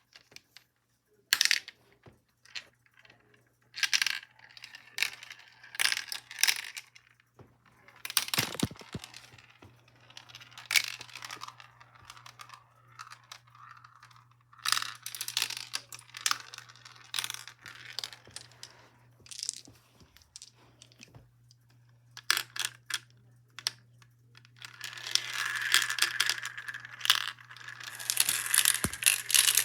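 Marbles and marble run pieces clicking and clattering in scattered short bursts, turning into a denser, continuous rattle about 25 seconds in.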